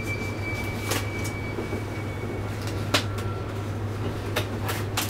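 Handling sounds as latex examination gloves are pulled on: four sharp clicks and snaps, the loudest about three seconds in, over a steady low hum. A thin, high, steady whine fades out about halfway.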